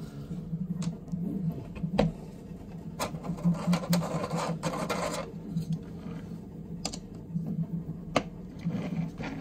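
3D-printed plastic parts clicking and scraping as pillars are pushed onto friction-fit pegs in the enclosure's base: several sharp taps spread through, with a longer stretch of rubbing about three to five seconds in, over a low steady hum.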